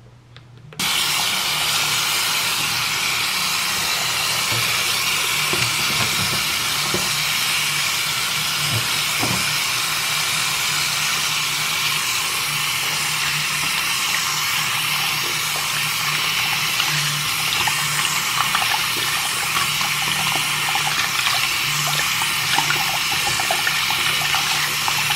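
Bathroom tap turned on about a second in, then running steadily into a sink while soapy hands are rubbed and rinsed under the stream.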